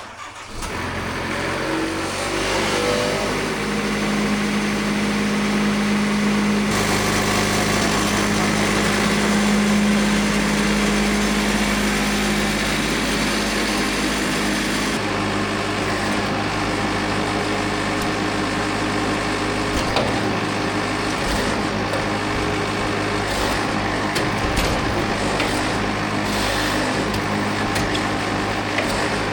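Portable band sawmill running. Its engine comes up to speed in the first second, then runs steadily while the band blade saws a sassafras log, the tone shifting twice along the cut.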